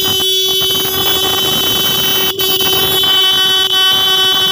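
Denso electric disc horn sounding one steady, continuous note while powered for a test, with a couple of very brief breaks. The horn has just been cleaned with diesel and adjusted to cure its rattling 'chhan chhan' buzz, and it sounds as a repaired horn.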